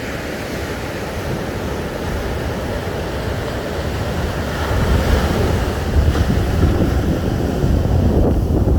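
Indian Ocean surf washing onto a beach, a steady rushing that swells louder about halfway through, with wind buffeting the microphone.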